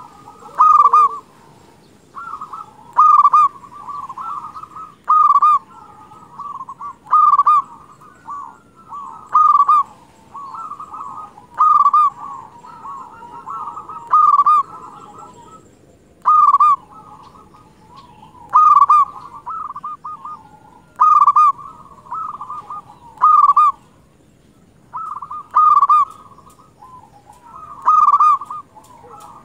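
Zebra dove (perkutut) in full song: a loud cooing phrase repeated about every two seconds, with softer, rolling coos in between.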